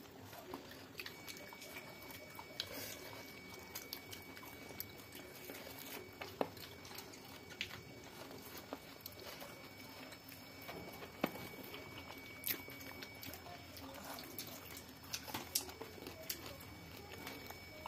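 Two people eating rice and vegetables by hand from a steel thali plate: soft chewing and mouth sounds with scattered sharp clicks and ticks. A faint steady high tone runs underneath from about a second in.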